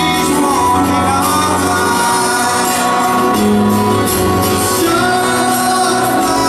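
Live rock band playing with singing: held chords with a change about two seconds in, and a sung melody over them.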